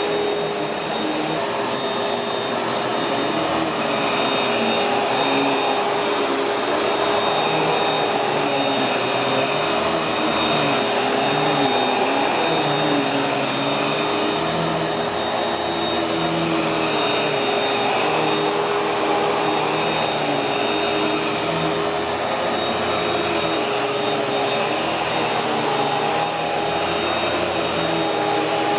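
Panasonic MC-UG471 bagged upright vacuum cleaner running steadily, its motor hum wavering slightly in pitch, with the high rush of air swelling and easing every few seconds.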